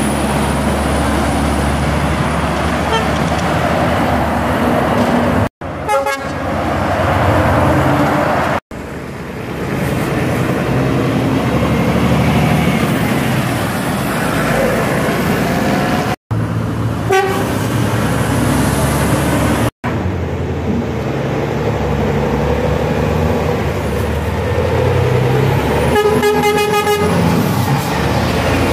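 Articulated lorries passing close by, their diesel engines and tyres making a steady road noise. The sound drops out briefly four times where the clips are joined, and near the end a lorry's horn sounds for about a second and a half.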